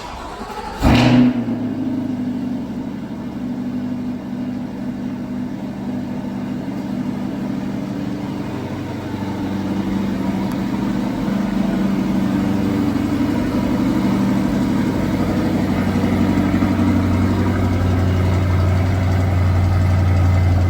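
Chevrolet C8 Corvette's V8 on a cold start: the starter turns briefly, the engine catches with a loud rev flare about a second in, then settles into a steady fast cold idle to warm up.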